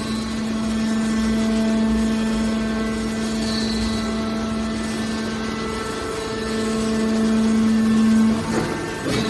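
Hydraulic metal baler running, its pump motor giving a steady hum that swells for a couple of seconds late on, with a brief clatter near the end.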